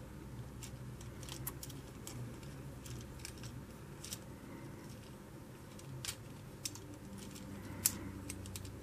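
Small plastic parts and joints of a Transformers Bumblebee toy figure clicking and snapping as they are turned and folded by hand during transformation: scattered light clicks, the sharpest one near the end.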